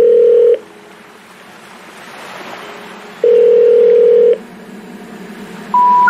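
Electronic beep sound effect: a steady low beep lasting about half a second at the start, faint hiss, another beep of about a second around three seconds in, then a higher beep right at the end that begins a rising run of tones.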